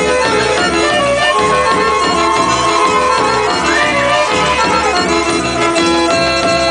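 Traditional Serbian folk music in the style of the Vranje region, played for a dance, with a steady beat. A long high melody note is held from just over a second in, with a brief upward swoop near the middle before it drops away.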